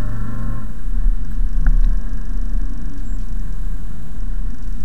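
Mercedes-Benz C-Class coupe engine and road rumble heard from inside the cabin while driving at a steady pace.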